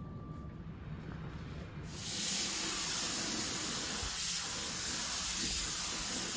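Quiet room tone, then about two seconds in the steady hiss of a gravity-feed compressed-air spray gun spraying epoxy etching primer.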